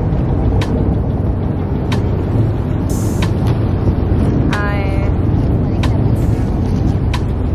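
Water taxi's engine running in a steady low rumble as the boat sits at the dock, with a few sharp clicks and a brief voice about halfway through.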